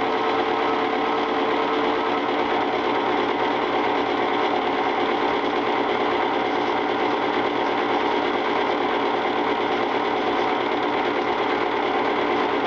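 Film projector running: a steady, rapid mechanical clatter with a hum, unchanging throughout.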